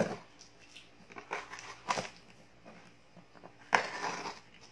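Scissors cutting through packing tape on a box: a few sharp snips and crackles, the loudest a little after three-quarters of the way through.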